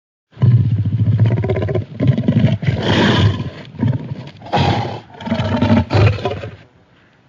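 Carcharodontosaurus dinosaur roar sound effect: a run of deep, rough growling roars rising and falling in several swells, dying away near the end.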